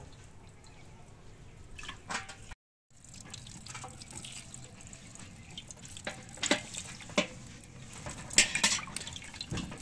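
Tap water running and dripping over a cauliflower into a clay bowl set in a steel basin. The sound cuts out for a moment about a quarter of the way in, and in the second half a few sharp splashes or knocks stand out as the cauliflower is handled and cut.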